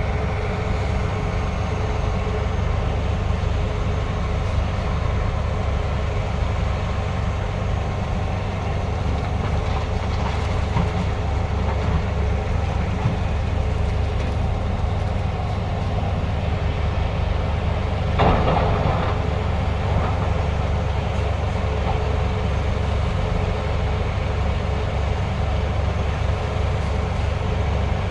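Heavy diesel engine of a large hydraulic excavator running steadily at work, a deep continuous drone. About two-thirds of the way through comes a brief loud crash.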